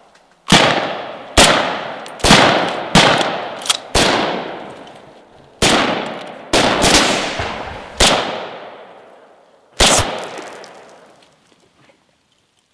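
Rifle shots in a firefight: about ten single shots at uneven intervals, each a sharp crack with a long echoing tail. The shots stop about ten seconds in.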